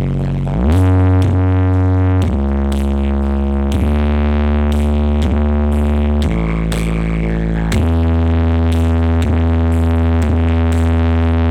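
Electronic dance music with heavy sustained bass notes and a steady beat of about two hits a second, played loud through a large outdoor sound system under test; a bass note slides upward just after the start.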